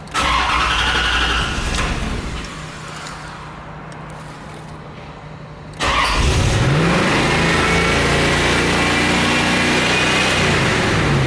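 Chevrolet Corvette C4 V8 started with the starter: a first loud burst at the start dies down, then about six seconds in the engine fires up and revs, rising in pitch and holding at high revs before falling near the end. The engine has sat for a long time and is suspected of misfiring.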